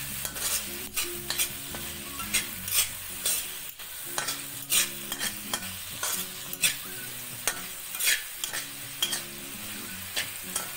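Diced vegetables sizzling in hot oil in a kadai while a metal spatula stirs and tosses them, its edge scraping and clinking against the pan in short irregular strokes, about one or two a second.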